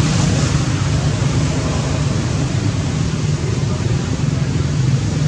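Steady, loud outdoor background noise: an even rush with a low rumble underneath and no distinct calls or knocks.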